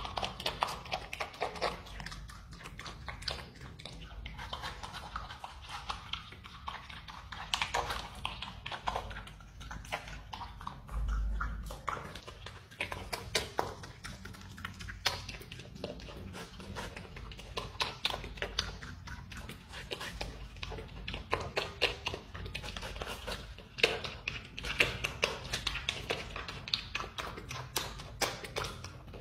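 A marmot eating watermelon at close range: continuous, irregular wet smacking and chewing clicks as it bites into the juicy flesh.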